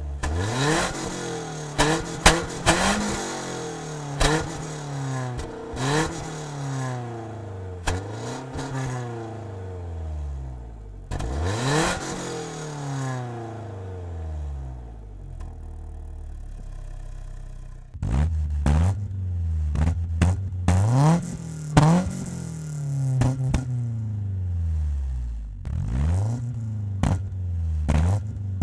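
BMW M44 1.9-litre four-cylinder engine on individual throttle bodies, blipped again and again so the revs rise sharply and fall back toward idle, with one longer rev near the middle and sharp cracks on many of the blips. About two-thirds of the way in the idle steps up to a louder, fuller note.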